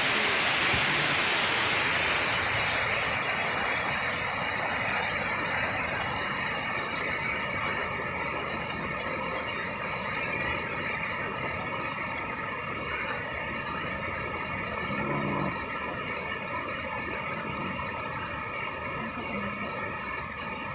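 Heavy rain pouring down steadily, a dense even hiss that slowly gets a little quieter.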